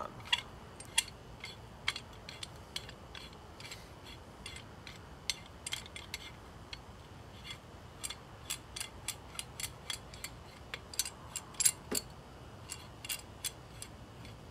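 Irregular light metallic clicks and clinks from hand tools and an old brake pad being handled, coming faster in the second half, with one louder knock near the end.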